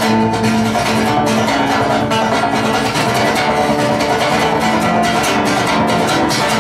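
Solo acoustic guitar being played, strummed and picked in a steady, unbroken run of quick strokes and ringing notes.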